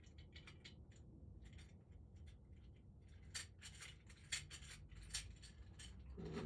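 Faint clicking and light rattling of small metal objects being handled, with a run of sharper clicks in the second half.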